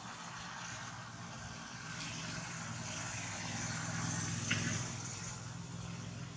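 A steady engine drone, swelling to a peak a little past the middle and then easing, with one short tick at the loudest point.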